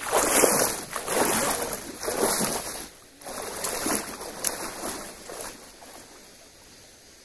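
Legs wading through a knee-deep stream, water splashing with each stride, the splashes growing fainter and stopping about five seconds in, leaving the steady rush of the stream's flow.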